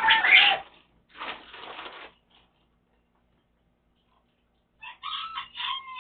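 A rooster crowing twice: one loud crow at the start and another about five seconds in that drops in pitch at its end, with a short rasping noise about a second in.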